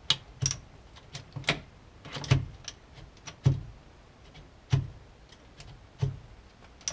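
Gear lever and shift linkage of a Mazda RX8 six-speed gearbox being moved by hand from gear to gear, each shift ending in a sharp mechanical clunk, about eight of them at uneven gaps of roughly a second.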